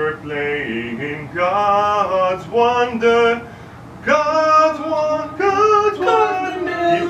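A man singing a vocal line without accompaniment: a phrase of held notes with short breaks between them.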